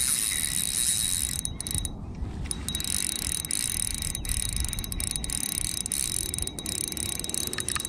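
Fixed-spool spinning reel's drag buzzing as a hooked sea trout runs and pulls line off the spool, broken by a few short pauses. It is the sound the angler calls beautiful.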